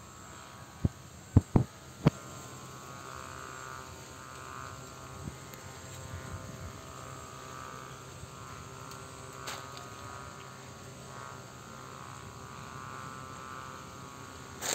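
Steady background hum with a faint higher humming band, outdoors among garden plants; four sharp knocks sound in the first two seconds.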